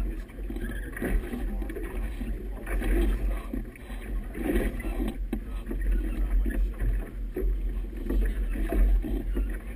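Wind buffeting the microphone, with water splashing and slapping against the hull of a boat moving through choppy water in irregular bursts.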